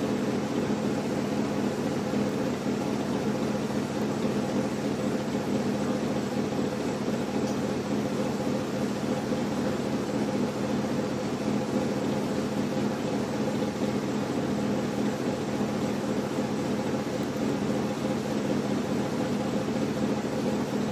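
Rooftop air-handling unit (fan or air conditioner) running with a steady, even hum over a whooshing hiss.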